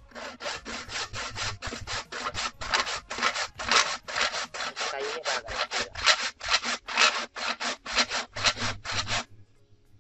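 Hand saw cutting through a wooden kelulut (stingless bee) log hive, in quick even strokes about four a second that stop near the end.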